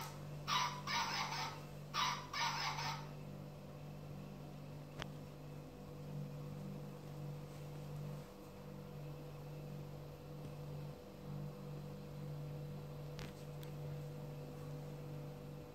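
A steady low electrical hum throughout. In the first three seconds come two pairs of short, sharp high-pitched sounds, and later a few faint clicks.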